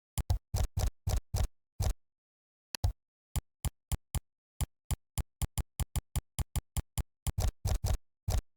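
Keystrokes on a computer keyboard: a quick flurry of typing, a short pause, then a steady run of about three to four key clicks a second.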